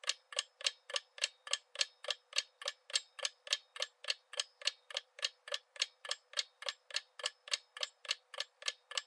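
Countdown timer sound effect: a steady clock-like ticking, about four ticks a second, that runs while the quiz answer timer counts down.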